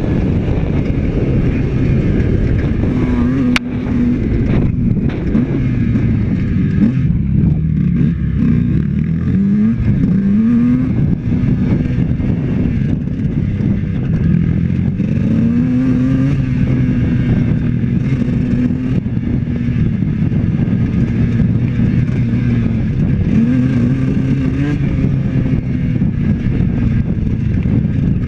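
Honda CR125 two-stroke dirt bike engine running hard, its pitch rising and dropping again and again as the throttle is opened and closed through the gears. A single sharp click sounds about three and a half seconds in.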